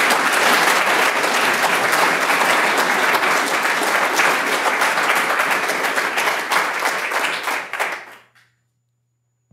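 Audience applauding, many hands clapping at once, dying away about eight seconds in.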